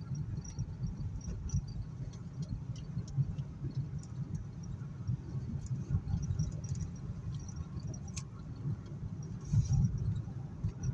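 Low, steady rumble of a car driving, heard from inside the cabin, with faint scattered ticks. A brief louder bump comes near the end.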